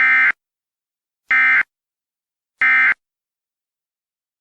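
Emergency Alert System end-of-message signal: three short bursts of SAME digital data tones, each about a third of a second long and a little over a second apart, marking the end of the alert.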